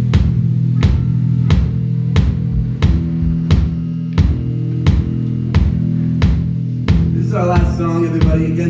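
Live rock band playing: electric guitar and bass holding loud chords over a steady drum beat, a hit about every 0.7 seconds. A voice comes in over the band about seven seconds in.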